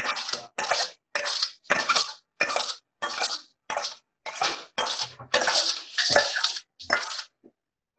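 Metal spoon scraping tomato sauce out of a steel pot into a mesh sieve, in a run of about ten short scrapes with sudden gaps between them. It is heard through video-call audio.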